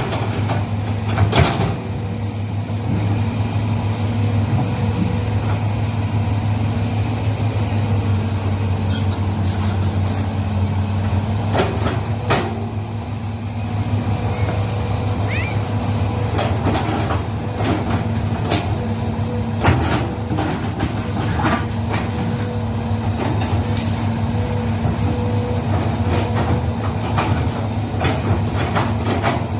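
Hitachi excavator's diesel engine running steadily, with scattered sharp knocks and cracks as the machine works in the ground.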